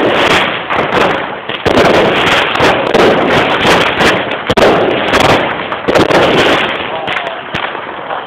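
Many fireworks going off in quick succession: a dense crackle of bangs and pops that thins out about seven seconds in.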